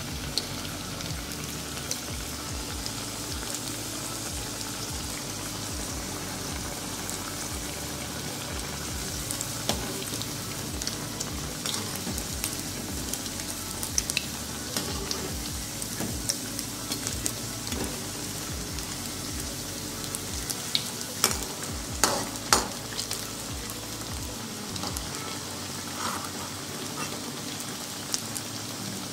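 Green pigeon pea (toor dana) patties deep-frying in hot oil in a metal kadhai, being fried until crisp: a steady sizzle with scattered crackles. A few sharp clicks stand out about three-quarters of the way through.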